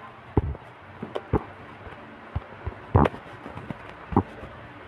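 A scatter of sharp taps on a phone's touchscreen, picked up by the phone's own microphone, about six in all, the loudest about three seconds in.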